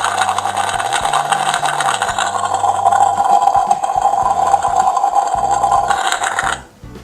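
Battery toy kitchen's electronic cooking sound effect, a steady sizzling hiss with a faint simple tune underneath, played through its small speaker; it cuts off suddenly near the end.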